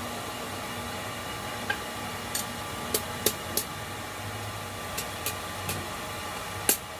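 Steady hiss and hum of a forge fire and its blower. From about two seconds in there are light, sharp, irregular metal taps, a hammer tapping the hot blade to straighten a bend, coming harder near the end.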